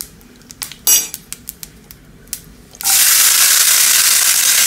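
A spoon scraping and clinking against a nonstick frying pan, with one ringing clink about a second in. Just before three seconds in, diced raw plantain, elephant foot yam and long beans are tipped into the hot coconut-oil tempering, and it breaks into a loud, steady sizzle.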